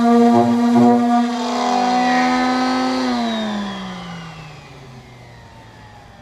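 A power tool's motor running at a steady high speed, then switched off and winding down, its pitch falling steadily over about three seconds as it coasts to a stop.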